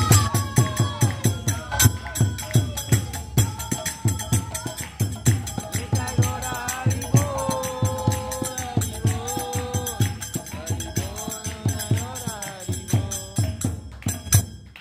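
Kirtan: a girl and a young woman singing a devotional chant in turn, over two mridanga drums beaten in a quick, steady rhythm and jingling hand cymbals (kartals).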